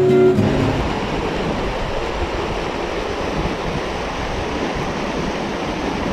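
River water rushing steadily over rocks, an even wash of current. A strummed acoustic guitar stops about half a second in.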